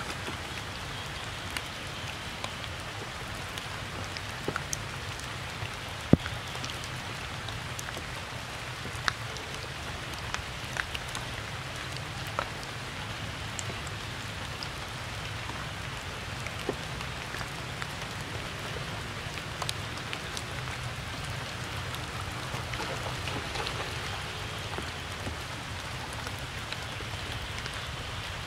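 Steady rain falling, with scattered sharp taps of drops; the loudest tap comes about six seconds in.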